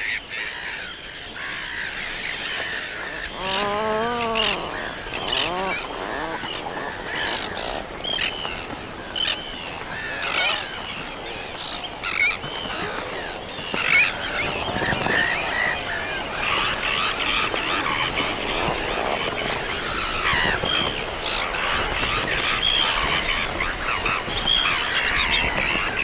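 Seabird colony of Atlantic puffins and black-headed gulls calling over one another: a dense chatter of many high calls, with a low, wavering call about four seconds in.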